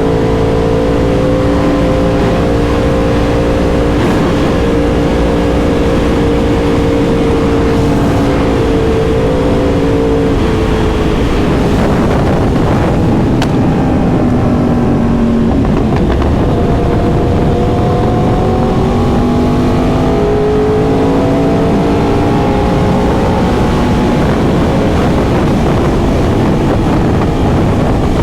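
2021 Yamaha YZF-R1M's crossplane inline-four engine running under way at a steady cruise. Its note drops about eleven seconds in and climbs again from about sixteen seconds. A steady low rush of wind noise runs under it.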